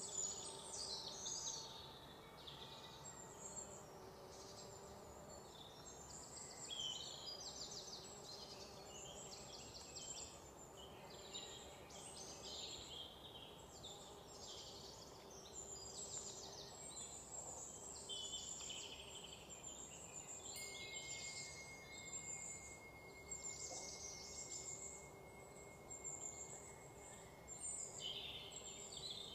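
Faint outdoor ambience of small birds chirping and twittering busily, with insects trilling, and a long steady high tone through the last third.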